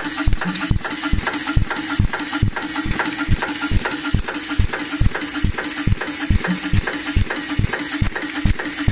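Rhinestone setting machine running, its head pressing stones onto fabric in quick, even strokes, about four a second, over a steady mechanical hum.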